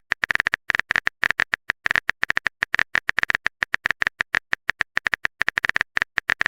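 Keyboard typing sound effect: rapid, identical clicks, roughly eight to ten a second, in uneven runs.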